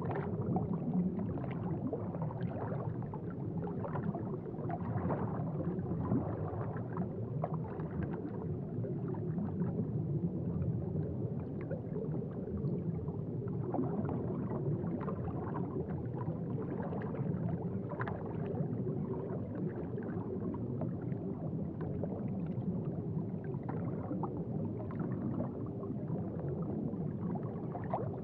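Aquarium water bubbling and gurgling steadily, with many small irregular bubble pops.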